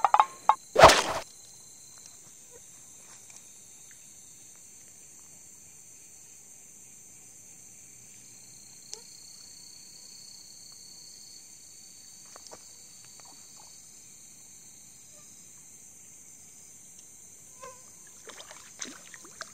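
Steady high chorus of night insects with a thin trill coming and going, broken near the start by a few sharp knocks, the loudest about a second in, and a few faint clicks later.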